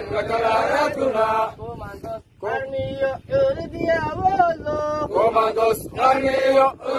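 Male voice singing a chant-like melody in long held notes, broken by brief pauses.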